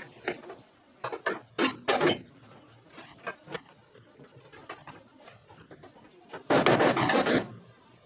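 Sledgehammer blows on the steel rear rail of a dump truck body, a few sharp strikes between one and two seconds in and lighter knocks around three seconds, driving the dipped corner back up against a floor jack. Near the end, a louder burst of metal noise lasts about a second.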